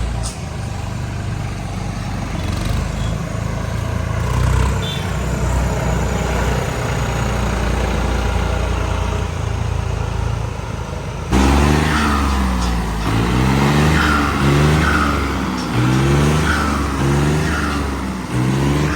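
A vehicle engine running steadily, then, after a sudden change about eleven seconds in, revved up and down over and over, roughly once a second.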